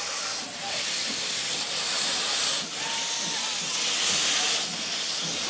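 1881 Baldwin 2-8-0 steam locomotive No. 340 venting steam from its open cylinder cocks in a loud, steady hiss as it gets ready to move off. The hiss dips briefly twice.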